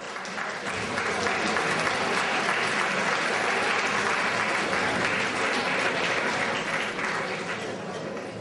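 Theatre audience applauding: a dense, even clapping that swells within the first second, holds steady, and eases off near the end.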